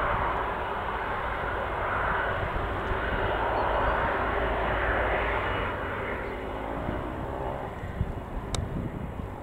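Airbus Voyager KC.2's jet engines running, a steady rushing roar that fades a little in the last few seconds.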